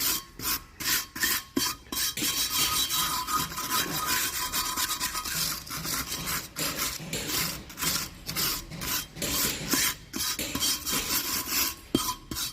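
Wire brush scrubbing rust off a steel spare wheel in quick back-and-forth strokes, about three a second, a scratchy rasping.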